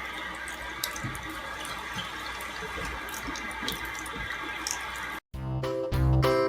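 Water running steadily, like a tap into a sink, for about five seconds. It cuts off suddenly and music with a plucked, bouncy tune begins.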